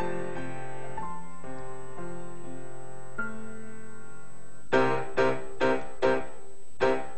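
Piano introduction to a choir song: held chords at first, then about two-thirds of the way in, louder struck chords repeated about twice a second.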